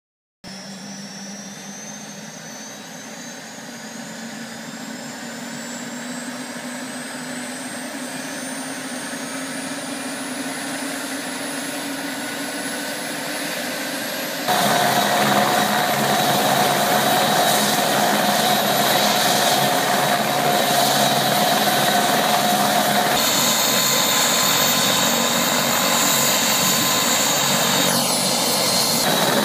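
Eurocopter Écureuil rescue helicopter's turbine spooling up: a high whine rising slowly in pitch as it grows louder. About halfway through the sound jumps louder and holds steady, the engine and rotor running at speed.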